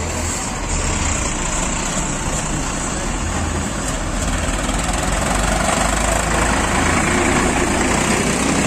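Diesel farm tractor pulling a heavily loaded sugarcane trolley runs past close by, with a heavy dump truck driving alongside it. The engine and road noise grow louder in the second half as they come closest.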